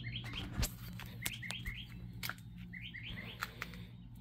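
Trane air conditioner running with a steady low hum and sharp, irregular pops, about six in four seconds, the loudest about half a second in. Birds chirp in the background.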